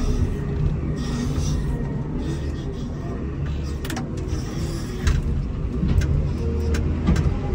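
Komatsu WA270 wheel loader's diesel engine running steadily while plowing snow with a Metal Pless live-edge plow, with several sharp knocks and rattles in the second half.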